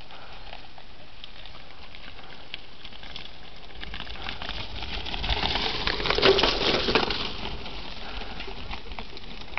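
Mountain bike passing close by on a dirt trail, its tyres crunching and crackling over dirt and loose debris; the sound builds from about four seconds in, is loudest around six seconds and fades after seven.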